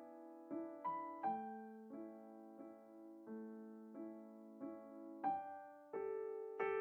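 Background piano music: a slow, gentle melody, with notes struck about every two-thirds of a second, each ringing and fading.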